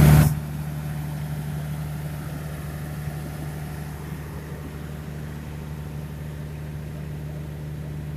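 Parked passenger train's diesel engine idling: a steady, even low hum that holds one pitch. A brief louder burst of noise comes right at the start.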